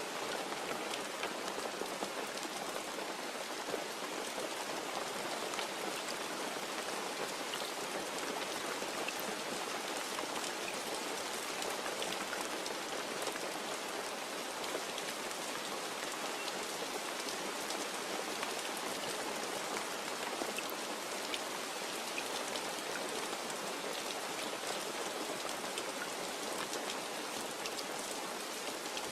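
Steady rain falling, with scattered drops pattering on a hard surface.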